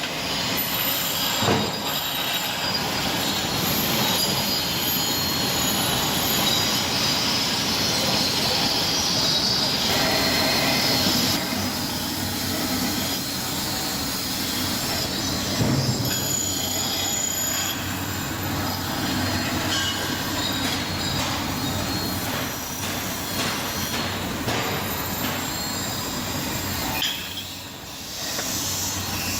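Heavy-duty foundry wheel grinders grinding metal castings: a continuous grinding screech with high-pitched squealing tones. It is loudest in the first third and dips briefly near the end.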